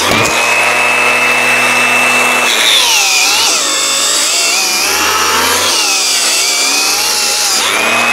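Cordless angle grinder with an abrasive head scouring rust off a car's underbody and wheel-arch metal. It spins freely with a steady high whine for the first couple of seconds and again near the end; in between, its pitch wavers and drops as it is pressed into the metal.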